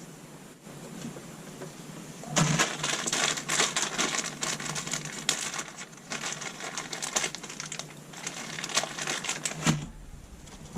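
Electrical tape being pulled off the roll and wrapped, making a rapid dense crackle in two long runs that start about two seconds in and stop shortly before the end.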